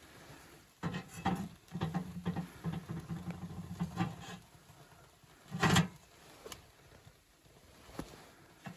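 Irregular knocks, scrapes and rustles of things being handled, with one louder thump about two thirds of the way through and a sharp click near the end.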